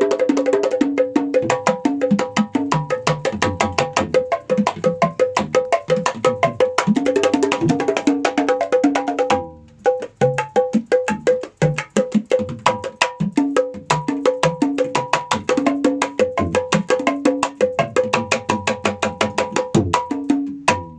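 Set of kendang-style hand drums (small barrel drums and a large kendang) played by hand in fast dangdut koplo patterns, rapid strokes mixing high ringing slaps with deeper booming tones. The playing breaks off briefly a little under halfway through, then carries on and stops just before the end.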